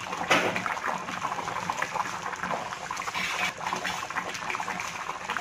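Thick fish curry simmering in an earthen clay pot, bubbling and popping in many small irregular pops, with a brief knock just after the start.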